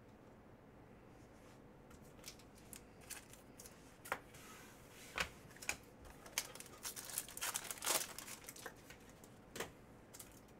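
Faint crinkling and ticking of a trading-card pack's foil wrapper being torn open and the cards handled. It starts about two seconds in and is busiest a little after the middle.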